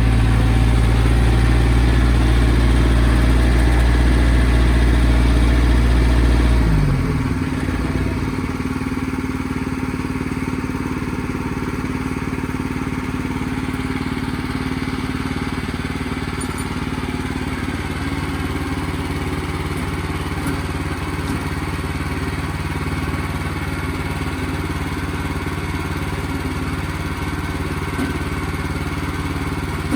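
Portable sawmill's engine running steadily. About seven seconds in, its deep hum changes pitch briefly and drops away, and it keeps running a little quieter.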